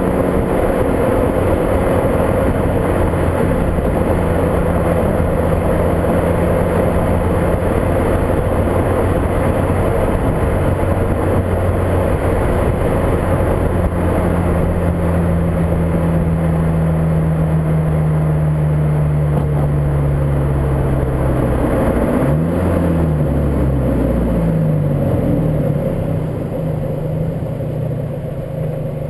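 Volkswagen Golf GTI Mk5's 2.0-litre turbo four-cylinder engine running while driving, with heavy wind noise on the microphone. The engine note falls slowly, then dips and rises a few times about three-quarters of the way through.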